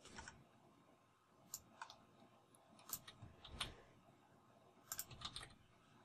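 Faint, scattered clicks of computer keys and a mouse against near silence, in small groups about one and a half, three and five seconds in.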